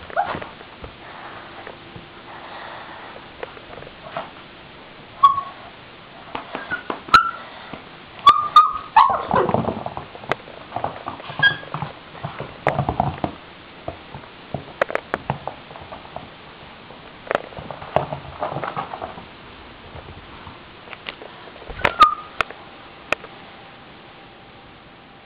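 Small dog whimpering in short, high squeaks, a few seconds apart, with scattered clicks and rustling.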